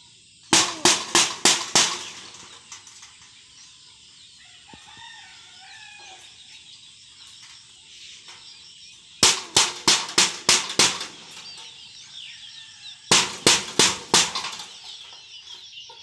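Stick beaten rapidly against a corrugated metal roofing sheet as a bird-scaring clatter, in three volleys of about six to eight bangs each. Faint chirping of small birds in between.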